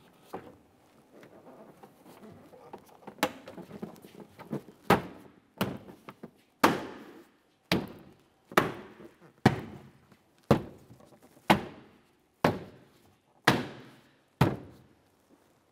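Plastic liftgate trim panel being pressed onto a Jeep Grand Cherokee liftgate, its push clips snapping home. Faint rustling of the panel at first, then about a dozen sharp thunks, roughly one a second, as each clip seats.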